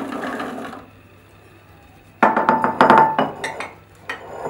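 Shelled green fava beans tumbling into a metal blender jug, ending under a second in. After a short pause, glassware clinks loudly with a brief ringing note, followed by a few lighter clicks.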